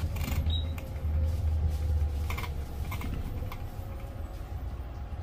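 Steady low rumble of a bus heard from inside the cabin, with light clicks and rattles scattered through it.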